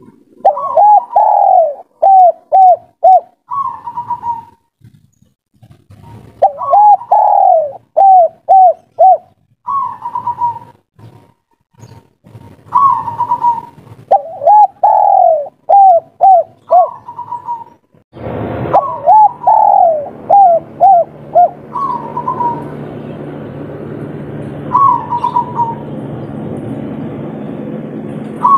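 Spotted dove singing its 'kuk 3' song: four phrases, each a long swooping coo followed by three or four short clipped notes, with single short coos in between. About two-thirds of the way through, a steady low hum comes in under the song.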